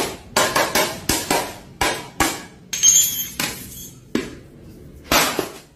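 Ceramic plates being smashed one after another on a hard floor: a series of about a dozen sharp, irregularly spaced crashes.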